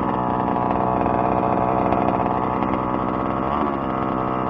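Small two-stroke gas engine of a 1/5-scale RC truck running steadily as the truck rolls across grass, easing off slightly near the end.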